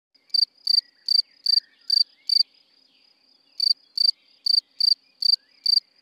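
Field cricket chirping: a string of short, high-pitched chirps, about two and a half a second, made by rubbing its wings together. The chirping breaks off for about a second in the middle, then resumes.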